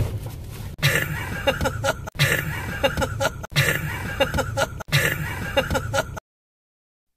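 A young man laughing over the low rumble of a vehicle cab. The laughter comes in four short cuts of about a second and a half each and stops abruptly about six seconds in.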